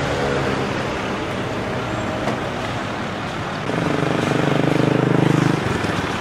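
Steady street traffic noise. A motor vehicle's engine passes close from about four seconds in, its hum louder for under two seconds before dropping away suddenly.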